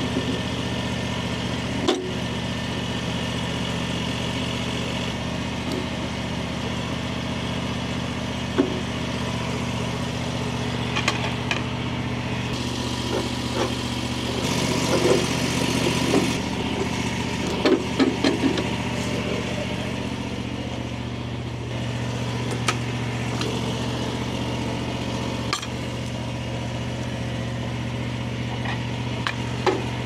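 Portable bandsaw mill's engine running steadily, with scattered sharp clanks and knocks from the saw head, the busiest stretch a little past halfway.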